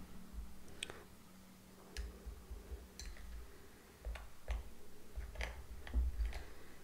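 Metal spoon stirring a thick, wet mixture in a small glazed bowl, ticking and clinking against the sides at irregular intervals, about one to two ticks a second, with soft scraping and a few dull knocks.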